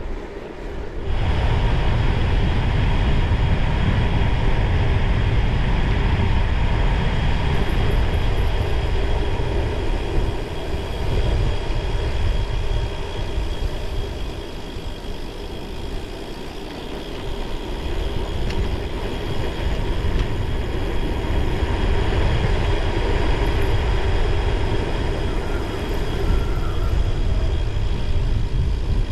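Wind buffeting the action camera's microphone while cycling into a strong headwind: a loud, steady rushing rumble that comes in sharply about a second in.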